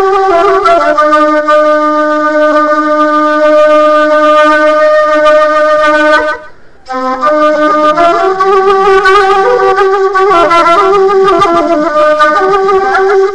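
Background music led by a reed-like wind instrument. It holds long notes, breaks off briefly just past the middle, then carries on with a moving melody.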